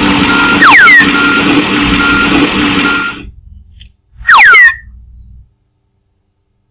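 Cartoon sound effects: a loud, noisy, machine-like sound with a steady hum and a short high beep repeating about every three-quarters of a second, with falling whistle glides about a second in. The noise cuts off about three seconds in, another quick run of falling whistles follows, then silence.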